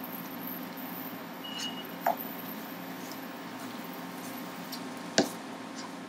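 Slotted spatula stirring and scraping minced beef and chopped vegetables in a nonstick frying pan, over a steady background hum. The spatula knocks against the pan lightly about two seconds in and sharply about five seconds in.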